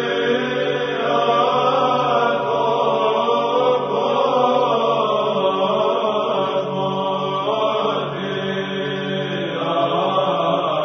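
Orthodox church chant: voices singing a slow, sustained melody over a steady low held note, the melody shifting to new notes several times.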